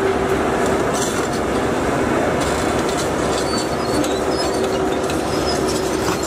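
Excavators and a stone crusher running together: a steady machine hum with continuous, irregular clattering of rock against metal as stone is fed into the crusher's hopper and screen.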